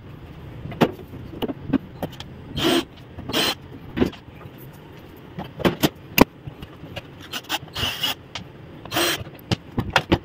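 Irregular clicks, knocks and short scrapes of hands handling an audio mixer's casing and circuit boards as the mixer is opened up.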